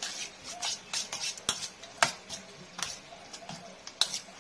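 Metal spoon stirring raw chicken pieces and beaten egg in a stainless steel bowl: irregular clinks and scrapes of spoon on steel with wet squelching, with sharper knocks about two seconds in and near the end.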